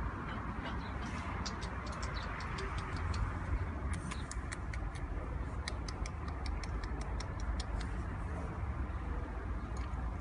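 Light, irregular clicking and rustling close to the microphone as a hand strokes a cat inside a fleece-lined cat bed, over a steady low rumble.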